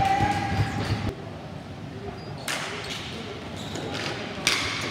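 Ball hockey play in a hall. A voice calls out over low thumps in the first second, and then sticks and the hard plastic ball give two sharp clacks, about two and a half and four and a half seconds in.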